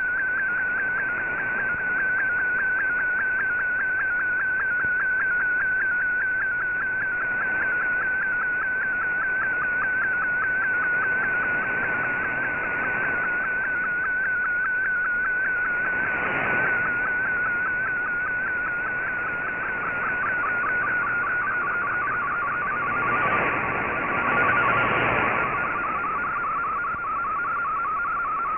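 Shortwave radio data signal carrying a picture transmission, heard through a communications receiver: a single steady, finely wavering whistle-like tone over radio hiss while the image is decoded line by line. The tone steps slightly lower in pitch about three quarters of the way through.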